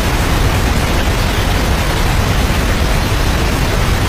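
Floodwater pouring through the ceiling of a shop onto a flooded floor: a loud, steady rushing and splashing.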